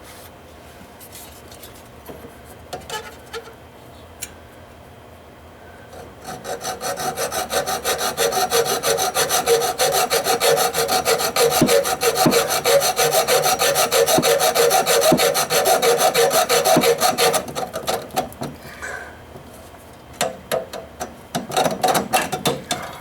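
Rapid, even back-and-forth rasping strokes worked by hand on copper pipe, starting about six seconds in and stopping about eleven seconds later, with scattered light knocks before and after.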